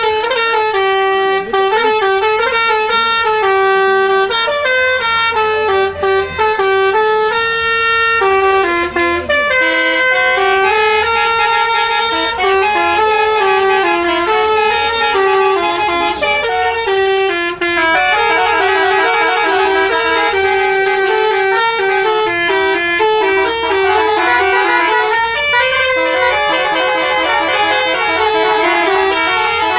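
Basuri telolet horn on a bus: a multi-tone electric horn playing a continuous melody of stepped notes, breaking into fast warbling runs of notes from about eighteen seconds in.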